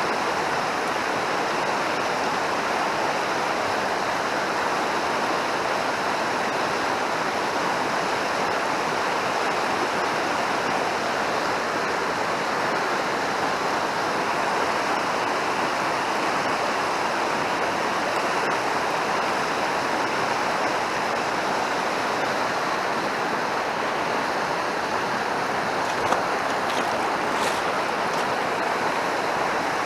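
Fast mountain stream rushing over rocks, a steady unbroken water noise. A few faint clicks near the end.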